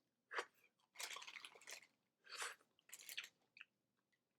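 Faint crinkling of a paper taco wrapper as a hard-shell taco is handled: a handful of short, irregular rustles and crunches.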